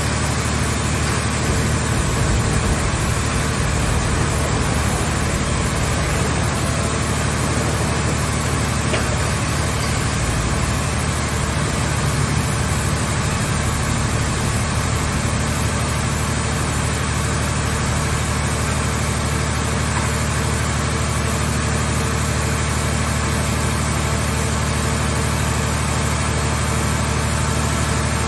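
Power unit of a mobile hydraulic scrap-car baler running steadily: a continuous low engine-and-pump hum with even machine noise over it.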